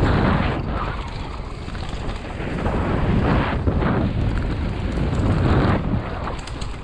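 Wind buffeting the camera microphone as a mountain bike descends a dry forest dirt trail at speed, with the tyres rolling over the dirt and short knocks as the bike hits bumps.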